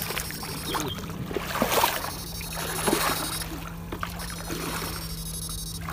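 Electrofishing rig running with its poles in the water: a steady low hum, with a high thin electrical whine that cuts in and out several times, and light splashing and bubbling around the electrodes.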